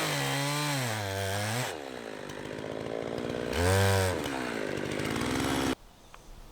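Chainsaw milling a large log, its engine note wavering up and down under load, revving briefly about four seconds in and then falling, before stopping suddenly near the end.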